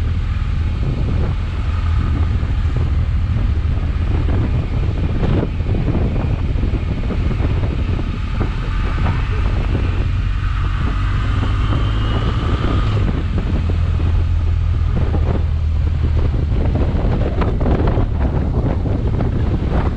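Wind buffeting the microphone of a moving motorcycle, with the engine running underneath as a steady low rumble. A faint whine rises slightly about halfway through.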